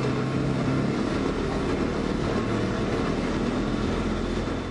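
Dirt bike engine running hard and steady while its rear tyre spins in a smoky burnout against a barrel, giving a loud, even mechanical drone.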